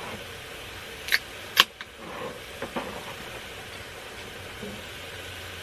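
Beer can being opened: the pull tab clicks, then cracks open with a sharp pop about a second and a half in, followed by a few light knocks, over a steady hiss.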